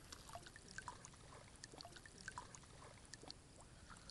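Faint water trickling and dripping, with many small, scattered drips and light splashes.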